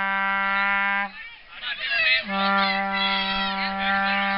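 A plastic vuvuzela horn blown in a long, steady blast on one note that stops about a second in. After a short gap with voices, a second long blast on the same note starts about two seconds in.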